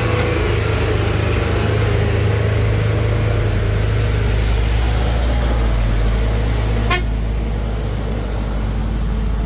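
Heavy diesel engine running loud and steady with a deep drone, a large machine working hard on a steep climb. A single sharp click comes about seven seconds in.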